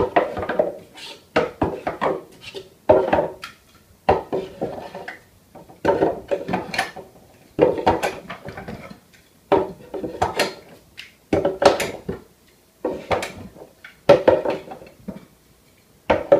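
Parallel-clamp accessories clattering and knocking on a wooden shelf as they are handled and set in place, in irregular bunches of hard clicks about once a second.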